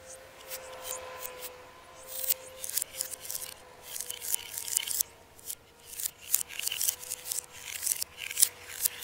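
Aerosol can of acrylic enamel spray paint hissing in many short bursts as strokes are sprayed onto paper. A faint steady hum runs underneath.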